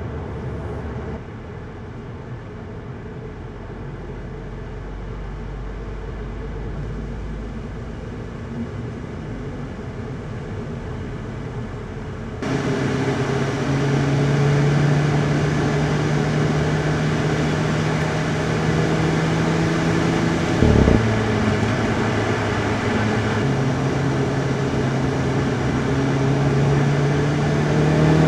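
Volkswagen Golf GTI mk7.5's turbocharged four-cylinder engine and tyre noise, heard from inside the cabin while driving. Partway through the noise steps up suddenly into a steady engine drone. There is a short knock about two-thirds of the way in, and the engine note rises near the end as the car accelerates.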